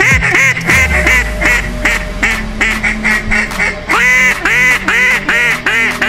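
A rapid, even series of duck quacks, about three or four a second, each rising then falling in pitch, growing louder about four seconds in.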